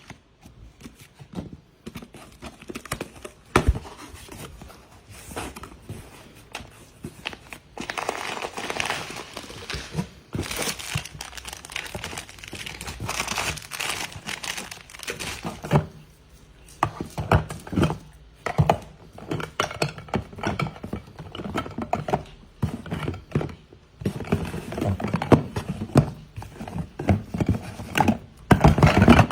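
Plastic packaging crinkling and rustling, with scattered knocks and clunks of packed goods being handled as a food aid box is unpacked.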